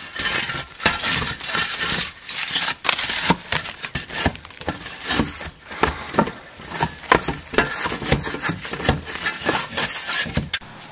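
Old asphalt shingles being torn off a roof with a roofing shovel: the blade scraping and prying under the shingles, with a busy run of irregular knocks, scrapes and clinks of nails and loose shingles.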